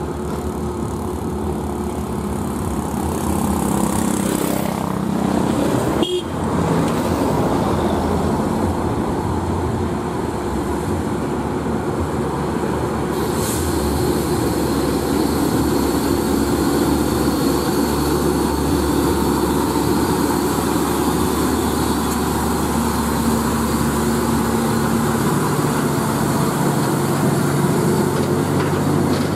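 Diesel engine of a DAF CF tractor unit pulling a heavily loaded flatbed trailer slowly up a hill, a steady labouring drone that grows deeper and louder as the truck passes close near the end. A sharp short sound comes about six seconds in.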